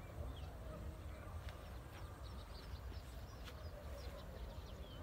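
Many birds chirping and twittering in short, rapid calls, over a steady low rumble of wind on the microphone.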